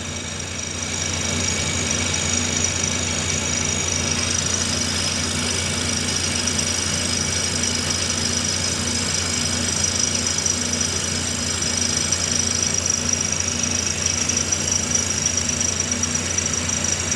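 Milling machine running steadily: a constant low hum with a steady high whine above it.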